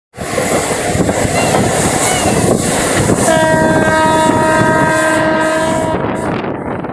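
Train running at speed, heard from aboard at an open door or window: loud, steady rolling noise of wheels on rail. About three seconds in, the locomotive's horn sounds one long, steady blast that stops about three seconds later.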